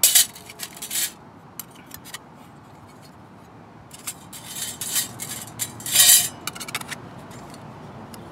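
Thin metal panels of a folding pocket wood stove clinking and scraping against each other as they are handled, in a few short bursts: at the start, about a second in, and several more between about four and seven seconds in.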